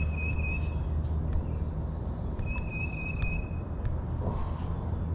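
A steady low rumble with scattered small clicks, and a bird whistling two long, even high notes of about a second each: one at the start and one about two and a half seconds in.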